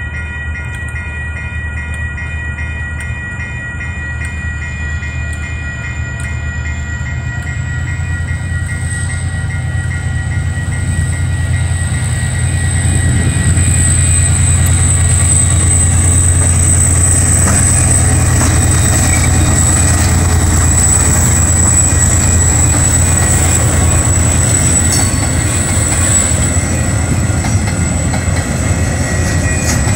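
Freight train approaching and passing over a level crossing: the diesel locomotive's low rumble grows over the first dozen seconds and stays loud as the wagons roll past, with a high thin squeal from the wheels. The crossing's warning bell rings steadily throughout.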